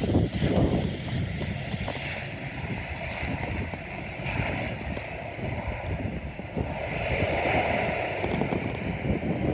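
Fixed-wing airplane's engines running, a steady rumble.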